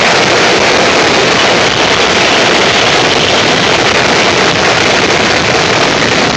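Fireworks finale: a dense, unbroken barrage of shell bursts and crackling effects that overloads a smartphone microphone, heard as loud, steady, distorted noise in which no single bang stands out.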